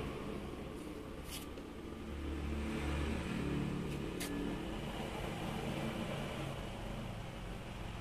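Low, steady background rumble with two brief sharp clicks, one about a second in and one about four seconds in.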